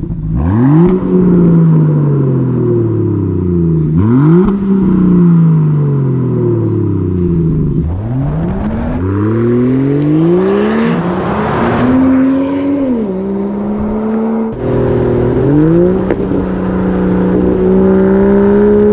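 2024 Range Rover Sport plug-in hybrid's 3.0-litre inline-six running with a Quicksilver sport exhaust, its valves open. The revs rise sharply and fall away four times, then climb steadily, drop once as if for a gear change, and climb again before holding steady near the end.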